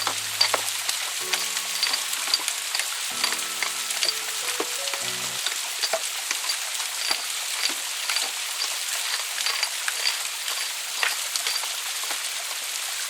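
Water from a small waterfall splashing and spattering, a dense crackle of many small drops. Soft background music with steady low notes plays over it for the first five seconds or so, then stops.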